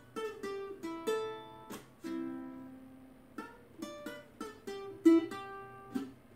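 Solo ukulele playing an instrumental lead-in: a run of plucked single notes mixed with short strummed chords, each ringing out and fading.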